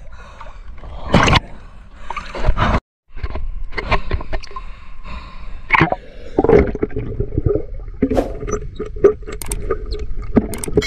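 Water splashing and gurgling around a camera held at and just under the water's surface, in irregular bursts with knocks and scrapes of handling. The sound cuts out completely for a moment about three seconds in.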